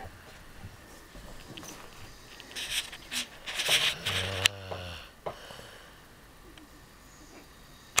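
A person snoring on purpose, for a snoring contest: noisy, hissing breaths, then a low buzzing snore about four seconds in, quieter toward the end.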